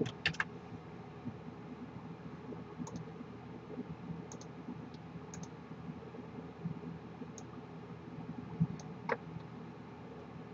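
A few faint computer mouse clicks, spread out and the strongest about nine seconds in, over a low steady hum of room tone.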